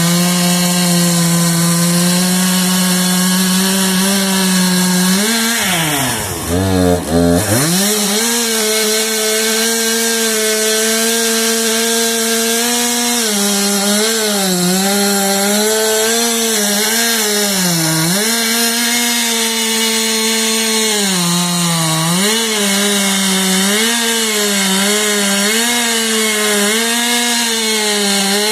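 Stihl chainsaw running at high revs while cutting wood, its engine pitch sagging and recovering again and again as the chain bites. About six seconds in it drops to idle for a moment, then revs back up.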